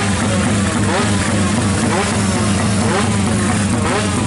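Drag-race motorcycle engines running while queued, over a steady low drone, with the throttle blipped again and again so the revs rise in short sweeps.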